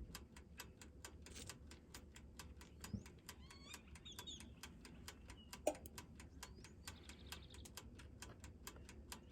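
Dash mini toaster oven's dial timer ticking rapidly and evenly as it counts down the toasting time. Birds chirp faintly a few seconds in.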